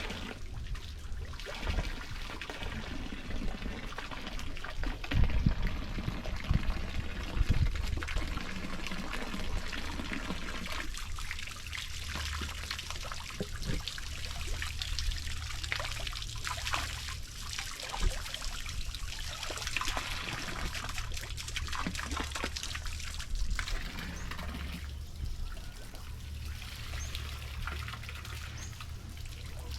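Water trickling and splashing, with a steady low rumble underneath.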